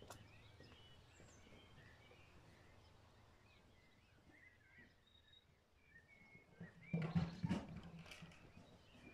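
Faint birdsong: small birds chirping and twittering on and off. A brief louder sound of about a second comes about seven seconds in.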